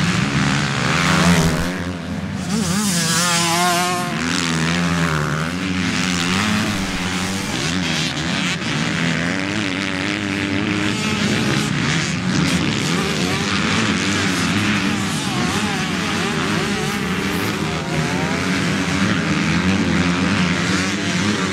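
Several motocross bikes' engines racing, their pitch rising and falling as riders rev through corners and past one another, with a loud burst as one passes close about a second in.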